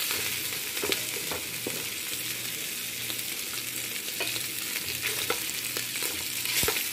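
Pork pieces sizzling in a pan as they brown, with a wooden spatula scraping and clicking against the pan now and then as they are stirred.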